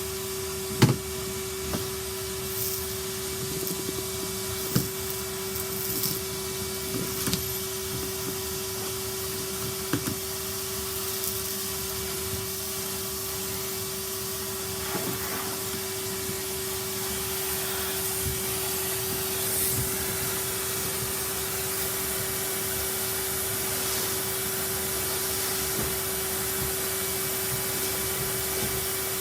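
Vacuum cleaner running steadily with an even, constant-pitched hum. A few sharp knocks of the nozzle or hose against things come in the first ten seconds.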